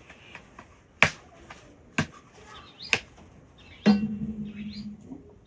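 Three sharp knocks about a second apart, then a louder knock followed by a short, steady low hum.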